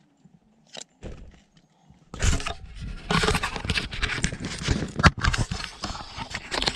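Camera handling noise: the microphone rubbing and knocking against clothing and a backpack. It becomes loud, irregular rustling and scraping with sharp knocks about two seconds in, after a nearly quiet start.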